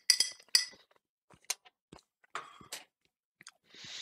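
Sharp clinks of crockery and cutlery, loudest in the first half-second, then a few lighter taps and a short scrape, as thickener is tipped off a plate into a pot of goulash.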